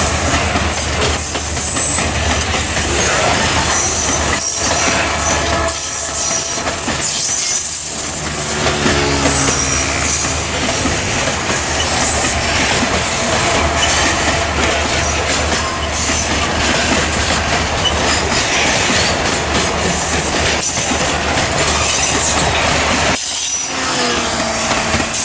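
Freight wagons rolling past close by, their wheels clattering on the rails and squealing shrilly, over the steady low rumble of the diesel locomotives hauling the train.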